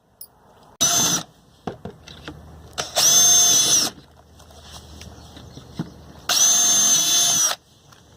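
Electric hand drill run in three bursts, one brief and two lasting about a second each, with a steady motor whine, drilling mounting holes in a motorcycle's plastic body panel.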